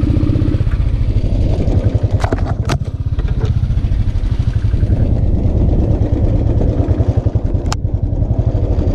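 Royal Enfield single-cylinder motorcycle engine running at low speed with an even thumping beat as the bike works its way out through rough scrub. Three sharp knocks cut in, two close together about two seconds in and one near the end.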